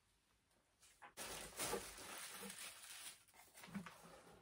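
A cardboard box being opened by hand: its flaps and the tissue paper inside rustle and crinkle for about two seconds, starting about a second in, followed by lighter handling noises.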